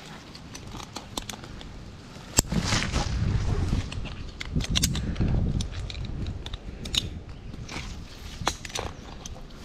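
Tree climber's gear and movement: scattered sharp clicks and clinks of metal climbing hardware, with rustling against the tree. A loud click about two and a half seconds in is followed by a few seconds of louder low rumbling.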